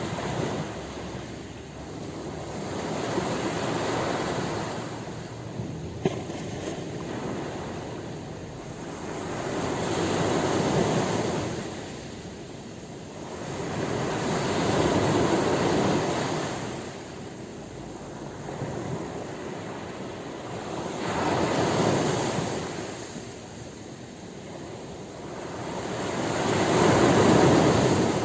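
Ocean surf: waves break and wash in, rising and falling in five swells about every five to six seconds, the biggest near the end.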